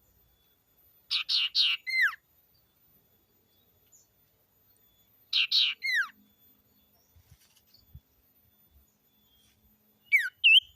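Common iora (cipoh/sirtu) singing: twice, about four seconds apart, a phrase of three or four quick notes ending in a falling whistle, then a short different call of falling and rising notes near the end.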